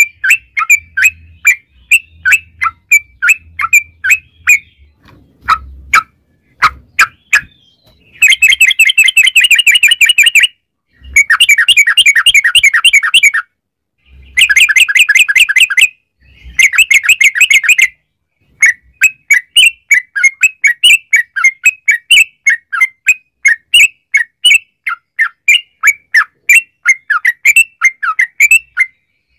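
Yellow-vented bulbul (trucukan) singing. Short, bright chirps about twice a second give way to four long, rapid, rolling trill phrases (the 'ropel' song) around the middle, then it goes back to quick chirping. This is recorded lure song, played to make kept bulbuls answer.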